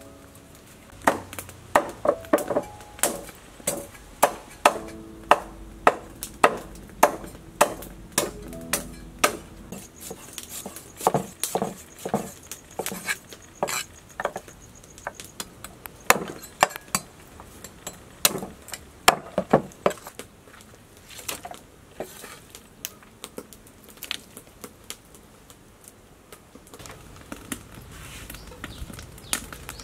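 Cleaver chopping raw meat on a wooden chopping board: sharp, irregular strikes, one or two a second, that thin out after about twenty seconds.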